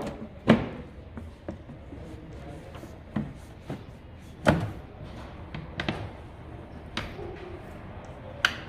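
A few sharp knocks and clicks, spaced a second or more apart, of parts and tools being handled at a car service bay, over a steady low background noise.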